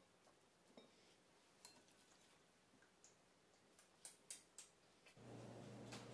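Near silence with a few faint clicks of a serving utensil against a ceramic plate as salad is lifted and turned, several close together about four seconds in. A steady low hum comes in about five seconds in.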